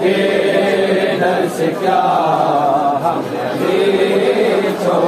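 A group of men's voices chanting a noha, a Shia mourning lament, together in unison.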